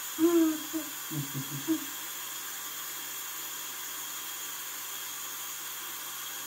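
A voice humming a few short notes in the first two seconds, then a steady hiss with a faint high whine.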